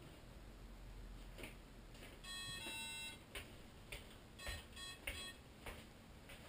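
A short two-part electronic beep tune, then a couple of single short beeps, with faint knocks and handling around them.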